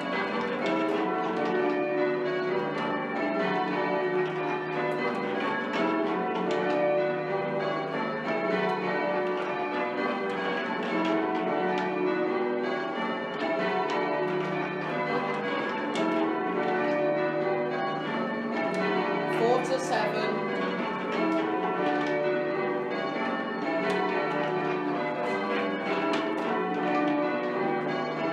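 A 24 cwt ring of eight church bells being change rung, the bells striking one after another in a steady, continuous peal.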